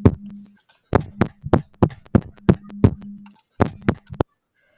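A short beat clip from Scratch's built-in sound library playing back on the computer: evenly spaced drum hits, about three a second, over a held low note. It cuts off suddenly about four seconds in.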